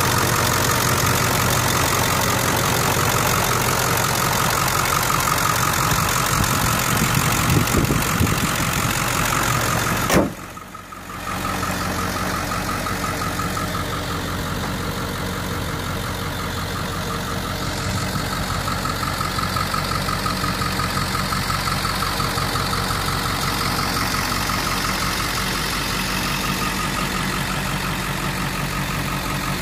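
Ford 7.3L Powerstroke V8 turbo diesel idling steadily, heard close over the open engine bay at first. After a brief drop-out about ten seconds in, it is heard from farther off.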